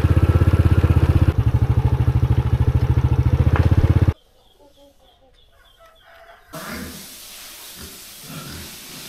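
Motorcycle engine running with a fast, even pulse while riding along a dirt track, stopping abruptly about four seconds in. Then a much quieter farmyard: faint chicken clucks, and a few short low grunts from black pigs in a pen.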